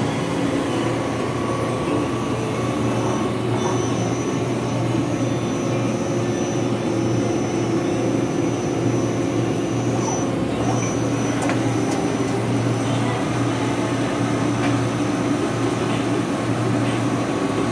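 Matsuura MC-1000V CNC vertical machining center running a cut with flood coolant: a steady machine hum with a thin high whine that drops out for a moment about three times.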